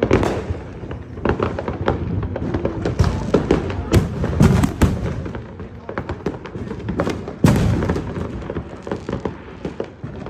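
Fireworks going off: a rapid, irregular string of sharp pops and crackles, with heavier bangs at the start, about four seconds in and about seven and a half seconds in.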